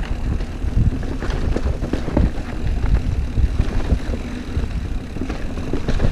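Wind buffeting the microphone at speed, with a steady stream of knocks and rattles from a mountain bike riding over a rough trail.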